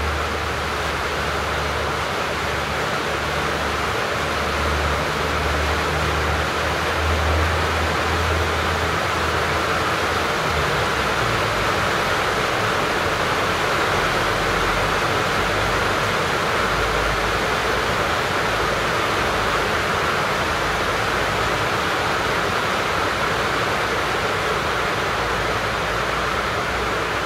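Steady rain falling over a city, an even hiss of rain on roofs and streets, with a low rumble underneath that shifts lower about halfway through.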